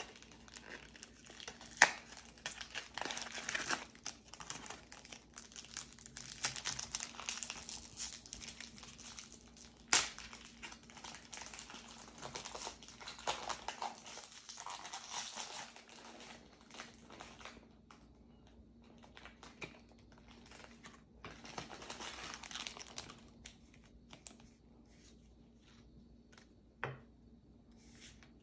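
Foil booster-pack wrapper crinkling and trading cards rustling as they are handled, with a couple of sharp clicks about 2 and 10 seconds in. The handling goes quieter over the last few seconds.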